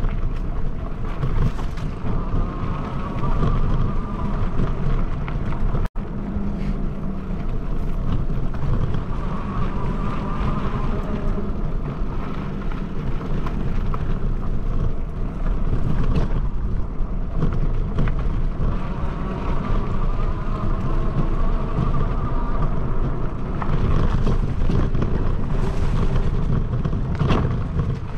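Bicycle riding along a dirt trail: wind buffeting the microphone over the steady rumble and rattle of the tyres and bike on the rough ground.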